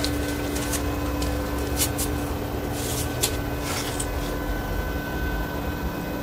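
Inverter arc welder switched on and idling: a steady electrical hum with its cooling fan running, and a few light clicks about two and three seconds in.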